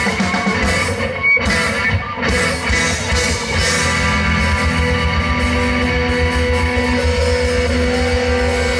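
Live rock band playing electric guitars with drums. After about three seconds it settles into sustained, ringing guitar notes.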